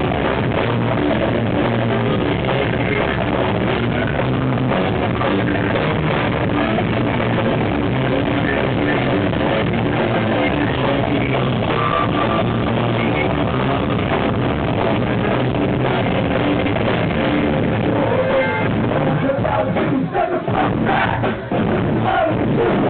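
Heavy hardcore band playing live: distorted electric guitars, bass and drum kit in a loud, dense wall of sound, dull and cut off at the top as heard from a camera in the crowd. The music drops out briefly twice near the end.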